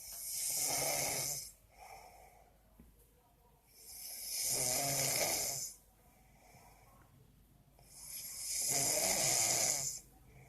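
A sleeping person snoring: three long snores, each about a second and a half to two seconds, roughly four seconds apart, with softer breaths between them.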